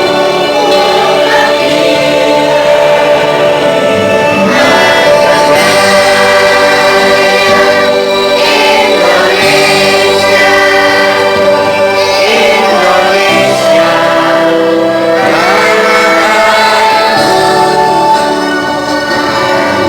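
School choir singing a Scout (Pramuka) song together, holding long notes that change pitch every few seconds.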